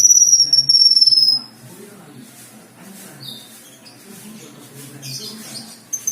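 Kinoi (cucak kinoi leafbird) singing: a long, thin, high whistle that slides slowly down in pitch for about a second and a half, soft short chirps after it, and a second long falling whistle starting near the end.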